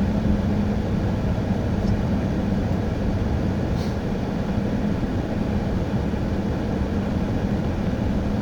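Car interior noise while driving on a wet, slushy road: steady tyre and road noise with a low, even engine hum, and a faint tick about every two seconds.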